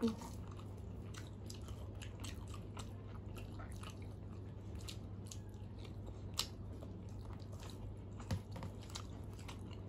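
Quiet chewing and mouth clicks of people eating rice and curry by hand, with faint squishing as fingers mix rice on steel plates. A couple of sharper clicks stand out in the second half over a low steady hum.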